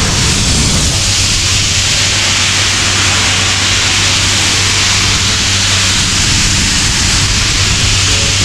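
Compressed-air blower nozzle blasting air in a loud, steady hiss, over the low, even drone of a diesel air compressor.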